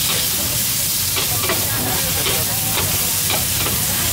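Bean sprouts and greens sizzling in hot oil in a large, shallow wok, with a metal spatula scraping and knocking against the pan several times as they are stirred.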